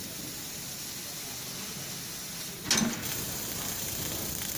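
Fiber laser cutting machine cutting black steel plate, with a steady hiss. About two and a half seconds in there is a short, loud burst, and the hiss is louder after it.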